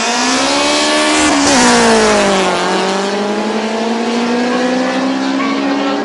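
Drag-racing street cars accelerating hard off the start line, engine note climbing. The pitch drops about a second and a half in, then climbs steadily again, with another drop near the end.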